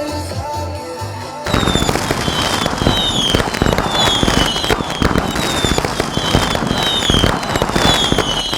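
Fireworks crackling densely, a fast steady crackle that starts suddenly about a second and a half in, mixed with music carrying a short falling tone that repeats at an even beat.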